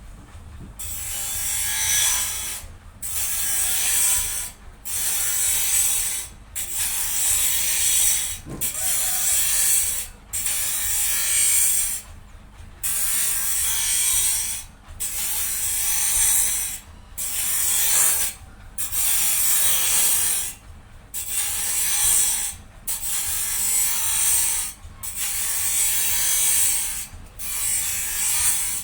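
A high, noisy mechanical sound in repeated strokes, each about a second and a half long with short breaks between, some fifteen in all.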